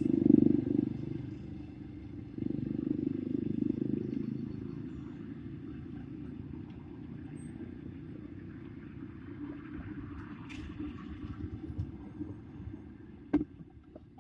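Street traffic: motor vehicles passing with a low rumble, loudest in the first second and again a few seconds in, then a steadier, quieter drone. A single sharp knock comes near the end.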